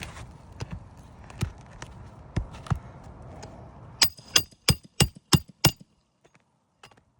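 Hammer driving a roofing nail into an asphalt shingle during a shingle repair: a few scattered taps, then about four seconds in a quick run of six sharp blows, about three a second.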